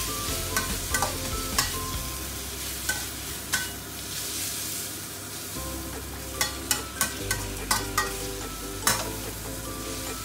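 Egg noodles and bok choy sizzling in a stainless steel wok while a metal spatula stirs and tosses them, knocking against the pan with short ringing clinks over a steady hiss. The clinks come more often in the second half.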